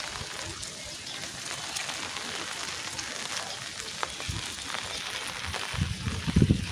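Light drizzle falling: a steady hiss with scattered small drip ticks. Near the end a louder low rumble comes in.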